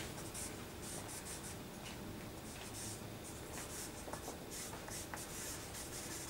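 A black drawing stick scratching over paper on an easel in short, repeated sketching strokes, faint and dry.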